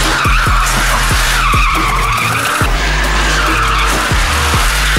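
Drift car tyres squealing in a long, wavering screech as the car slides sideways, over background music with a heavy, steady beat.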